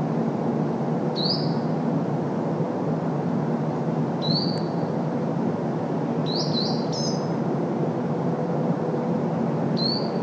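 Steady hum of distant road traffic, its lowest rumble filtered out, with a small songbird giving six short rising chirps a few seconds apart, two of them in quick succession about two-thirds of the way through.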